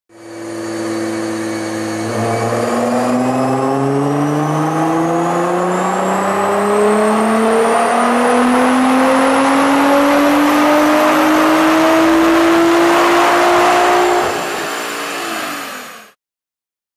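2015 Nissan GT-R's twin-turbo 3.8-litre V6 making a full-throttle pull on a chassis dyno. The note holds steady for about two seconds, then climbs smoothly in pitch for about twelve seconds, drops as the throttle closes and stops abruptly near the end.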